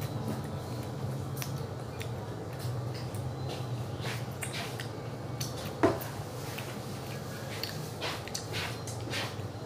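Steady low hum of room machinery, with small clicks and taps from snacking and hand movements scattered through, and one louder knock about six seconds in.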